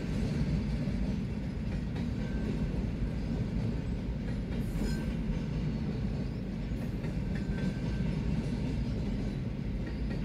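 BNSF double-stack intermodal freight train rolling past a grade crossing: a steady rumble of its wheels on the rails.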